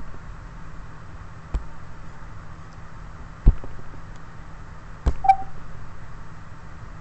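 Four sharp knocks or taps, about one every one and a half to two seconds, over a steady low hum, with a short beep just after the last knock.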